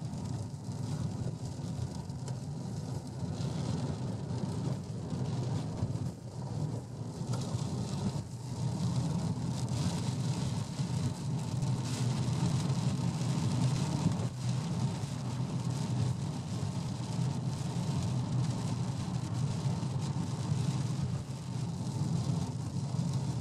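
Steady road noise of a moving car heard from inside the cabin: a low engine-and-tyre rumble with a fainter hiss above it, getting a little louder about a third of the way in.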